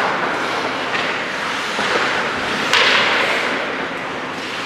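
Ice hockey play in an indoor rink: skate blades scraping the ice, with a sharp crack about three seconds in, from a stick, puck or boards, ringing out in the hall.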